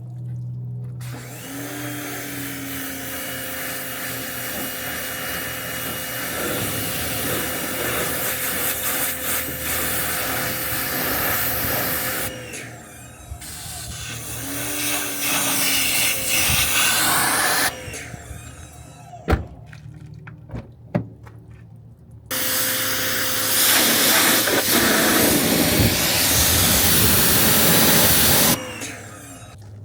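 Pressure washer spraying water onto a car in long bursts, its pump motor humming steadily and spinning up each time the spray starts. The spray stops several times when the trigger is let go, with a few sharp clicks during the longest pause.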